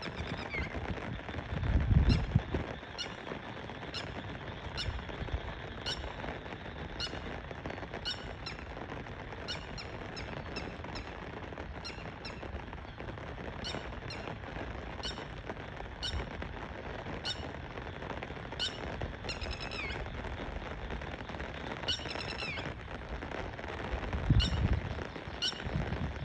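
Birds calling: a short, sharp high note repeated about once a second, with a couple of downward-sliding calls later on, over a steady outdoor hiss. Low rumbles about two seconds in and near the end.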